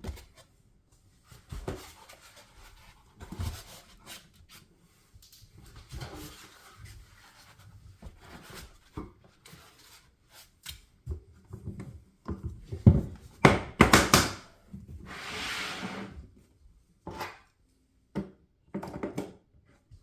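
Hand tools and foam trays being put back into a plastic rigid tool case: scattered knocks and thunks, with a cluster of sharper knocks a little past the middle followed by about a second of rustling scrape.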